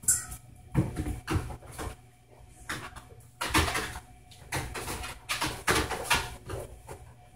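Irregular thumps and knocks of a dog's paws stepping onto and moving about a treadmill deck, over a faint steady hum.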